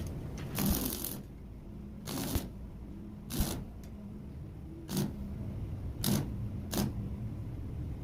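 About six short scraping or rattling noises, each under half a second, over a low steady hum.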